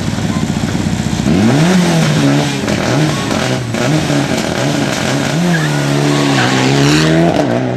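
Rally car at the stage start line. Its engine burbles roughly at low revs, then about a second in it revs hard and the car launches. The engine pitch climbs and drops through several quick gear changes as the car pulls away, getting quieter near the end.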